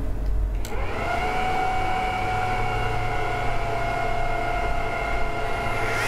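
Apple Xserve G5 rack server powering on: a click, then its cooling fans spin up to full speed with a steady whine over a rush of air, the whine climbing quickly at first and rising again near the end. The fans run flat out at power-on, before the operating system loads and quiets them.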